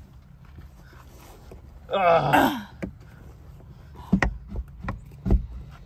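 A strained groan of effort, then a run of sharp clicks and knocks as the Ford Bronco soft top's front roof latch is pushed and worked by hand, over a low steady hum.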